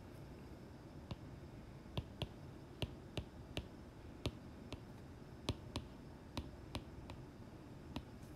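Stylus tip tapping on an iPad's glass screen while handwriting: a string of about fourteen faint, sharp clicks at an uneven pace.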